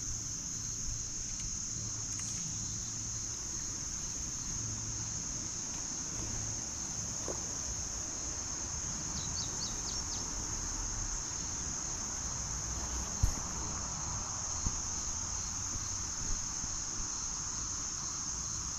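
Steady, continuous high-pitched insect chorus, with a low rumble underneath and a single sharp knock about thirteen seconds in.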